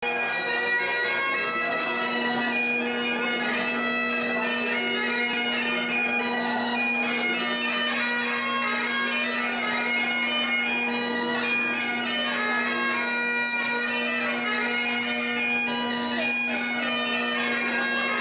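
Highland bagpipes playing a tune over a steady, unbroken drone.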